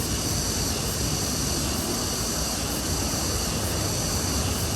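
Steady outdoor background noise: an even rushing hiss with a low rumble underneath.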